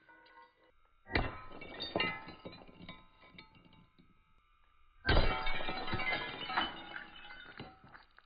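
A ceiling fan being smashed, in two bouts about a second in and about five seconds in: each starts with a sharp crash and trails into clattering and clinking of broken pieces with brief ringing.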